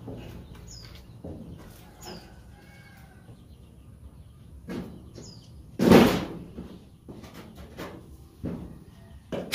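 Bamboo poles and wooden branches knocking and clattering together as they are handled and set in place, with one loud knock about six seconds in.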